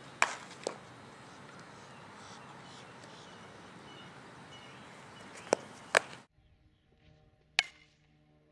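Softball practice: a few sharp knocks of a softball meeting bat and glove over steady outdoor background noise. About six seconds in the background drops much quieter, and one more sharp knock follows.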